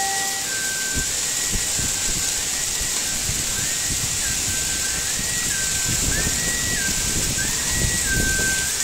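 Heavy rain mixed with hail pouring down, a dense steady hiss with low irregular rumbling underneath.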